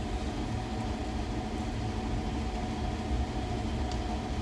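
Steady low hum with a faint steady tone above it, unchanging throughout.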